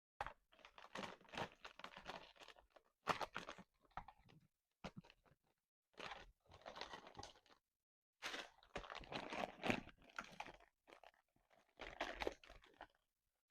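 Wrapped candies and treat packets crinkling and rustling as they are handled and pushed into a basket, in several irregular bursts with short pauses between.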